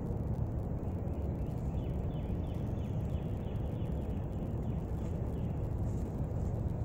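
Steady low outdoor rumble, with a bird giving a run of short, downward-sliding chirps, about three a second, for a couple of seconds near the middle.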